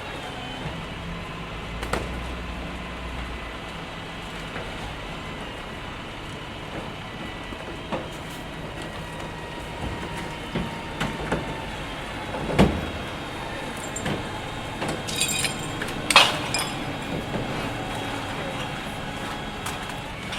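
City ambience: a steady wash of traffic noise with a low engine rumble in the first few seconds, and scattered knocks and clicks, the loudest about twelve and sixteen seconds in.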